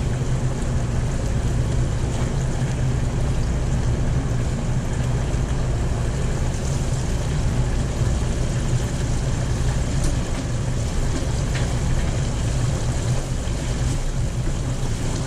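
Shrimp frying in an electric deep fryer: a steady sizzle of bubbling hot oil over a constant low hum.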